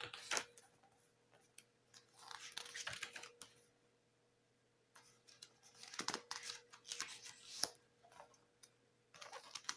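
Pages of a thick CD booklet being turned and handled: paper rustling in three short spells, with a couple of light taps.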